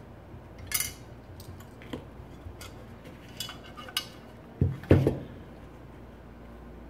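Metal parts of a Stirling engine kit clicking and clinking as they are handled, with a short ringing clink about a second in. About five seconds in, the metal frame piece is knocked down twice on the padded bench, the loudest sounds.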